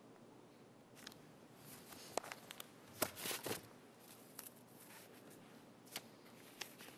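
Faint rustling and a few light clicks over quiet room tone, with the loudest rustle about three seconds in.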